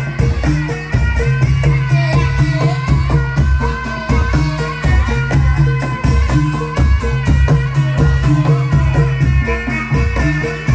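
Live Javanese traditional music with a steady percussive beat and shaken rattle-like percussion over repeating low held notes.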